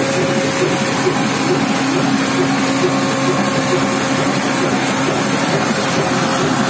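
Ruston Hornsby stationary diesel engine running steadily while driving a stone flour mill (atta chakki), a loud continuous mechanical din with a steady hum and a regular beat about twice a second.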